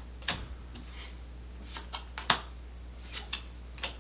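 Trading cards being flipped through one at a time by hand, each card slid from the stack with a short click; about seven quick flicks, the loudest a little past halfway, over a low steady hum.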